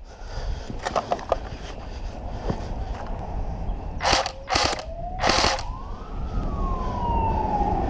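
Siren winding up in pitch for about two seconds and then slowly winding down, signalling the end of the airsoft game. Before it come a few light clicks and three short, loud bursts of noise.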